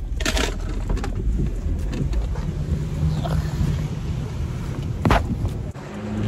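Wind rumbling on the phone's microphone with rain falling, and a single sharp knock about five seconds in.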